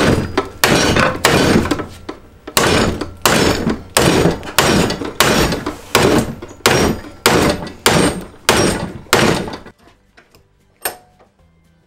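Hammer blows on a heavy-duty steel hinge leaf clamped in a vise, smashing it flat: a steady run of sharp metal strikes, a little under two a second, that stops about ten seconds in.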